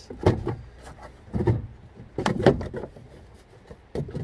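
Plastic lower radiator fan shroud being fitted back into place: several irregular hard knocks and clatters as it is pushed and seated.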